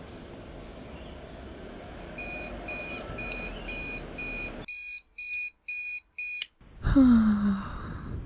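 Electronic alarm beeping in an even pulse, about two beeps a second, with a faint hum underneath for the first half. Near the end comes a louder, noisy sound with a low falling pitch.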